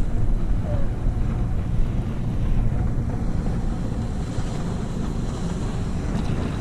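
Wind buffeting the microphone on an open fishing boat, a steady low rumble with no distinct events.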